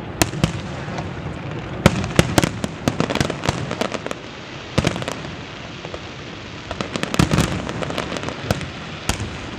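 Fireworks display: aerial shells bursting in an irregular series of sharp bangs over steady crackling, with a rapid cluster of bangs about seven seconds in.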